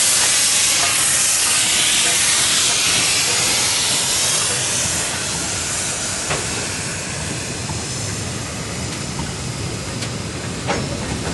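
A passing steam train, pulled by two BB18¼ class steam locomotives: loud hissing steam from the departing locomotives, strongest in the first few seconds and easing after, over the rumble of tank wagons and carriages rolling by. There are two sharp clicks from the wheels, about six seconds in and near the end.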